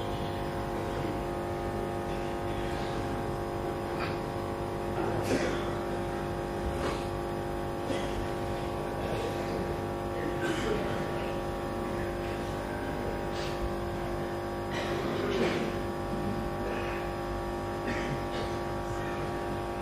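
Steady hum made of several fixed tones, under faint murmuring voices from a large gathered crowd, with a few scattered soft clicks.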